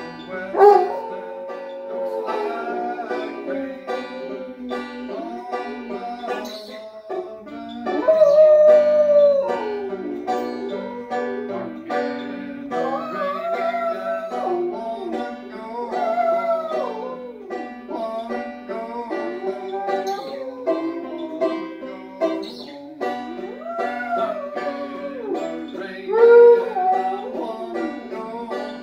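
Black and tan coonhound howling along to a banjo picking a bluegrass tune. The howls come in long, sliding phrases that rise and fall in pitch, with pauses between them, and they end shortly before the close while the banjo picks on steadily.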